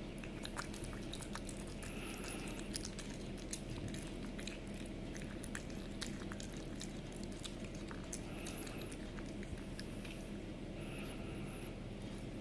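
A cat chewing and biting raw chicken breast, with many small, irregular clicks throughout, over a steady low hum.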